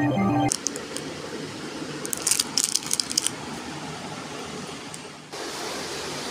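Metal costume jewellery jingling as it is rummaged through in a plastic box: light clinks, a few at first and then a quick cluster about two to three seconds in.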